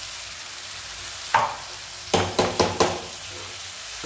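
Steel spoon stirring boiled potatoes through frying masala in a non-stick pan, over a steady sizzle of oil. The spoon knocks against the pan once about a second in, then several times in quick succession around the middle.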